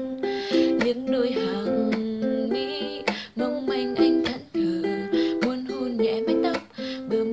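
A young woman singing a Vietnamese pop ballad to her own strummed ukulele accompaniment, with steady rhythmic strumming under the melody, in a small room.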